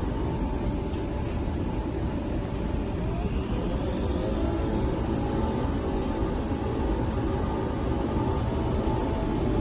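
Nespresso Vertuo Next coffee machine running through a brew cycle: a steady mechanical whir from the pump and spinning capsule, with faint wavering tones.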